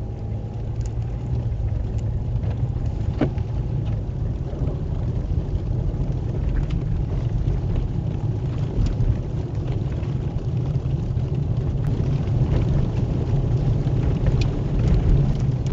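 Steady low rumble of a car running, with a few faint scattered ticks over it.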